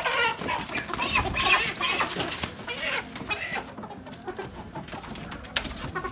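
Freedom Ranger chickens squawking and clucking while they are handled and lowered head-down into killing cones. The calls are loudest in the first three seconds, then quieter.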